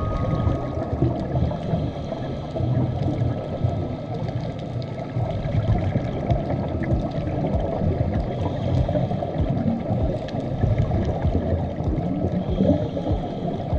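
Underwater sound picked up through a camera housing: a steady, rough rushing and bubbling of water.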